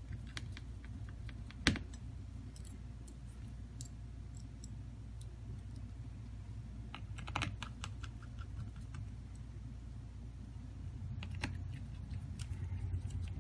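Scattered light clicks and taps from a smartphone being handled during a screen repair, with a sharp click about two seconds in, a cluster of clicks past the middle and another near the end, over a steady low hum.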